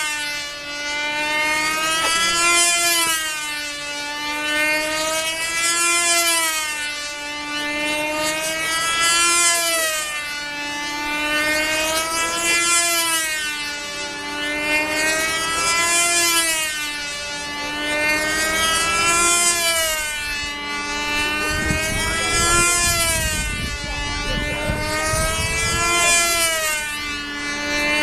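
Control-line model airplane engine running at full power as the tethered plane circles the pilot, its high buzz rising and falling in pitch and loudness about every three and a half seconds as it passes on each lap.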